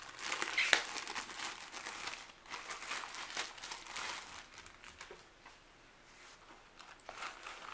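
Packaging and a soft headphone carrying pouch being handled and opened: irregular crinkling and rustling with small clicks, dying down about five seconds in and picking up faintly again near the end.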